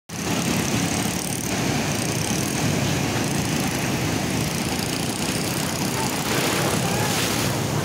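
Heavy ocean surf breaking and washing up the beach: a loud, steady roar with a deep rumble underneath, as of wind buffeting the microphone.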